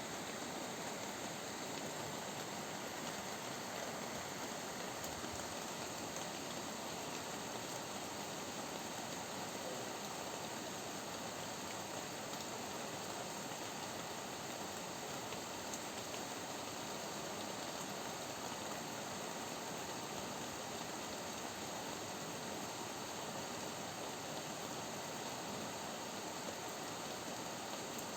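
Rain falling steadily: an even hiss, with a few faint tick-like drops now and then.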